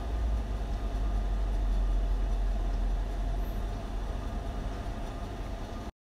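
Steady low rumble with an even hiss over it and no distinct events; it cuts off abruptly to silence near the end.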